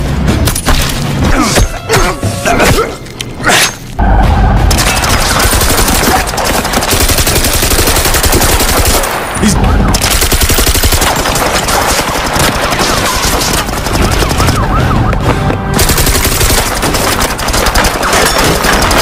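Heavy automatic rifle gunfire: a few separate shots at first, then near-continuous rapid fire from about four seconds in.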